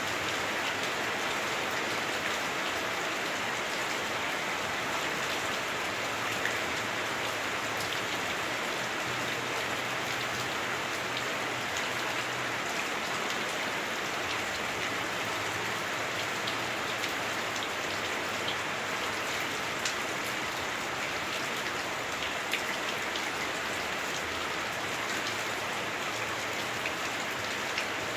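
Heavy rain drumming on a house roof, heard from indoors: a steady dense hiss with scattered sharper drop ticks. The roof muffles it somewhat.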